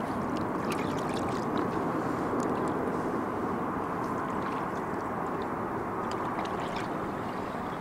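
Water washing and gurgling against a fishing boat's hull in a steady wash, with scattered small splashes and drips.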